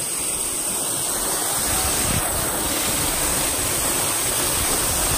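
Steady rush of a waterfall pouring into a shallow rock pool, close by.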